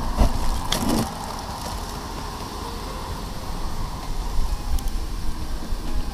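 Wind rumbling and gusting on the camera microphone, with a few short knocks in the first second.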